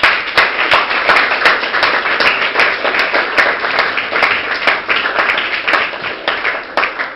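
Audience applauding, a dense clapping that starts suddenly and eases slightly near the end.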